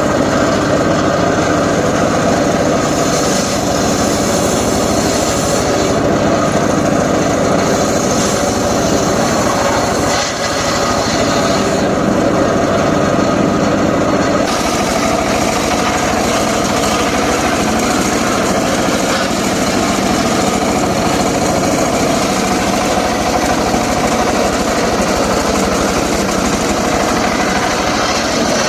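Homemade engine-driven circular saw rig running steadily, its high hiss swelling and easing at times, with a brief dip in level about ten seconds in.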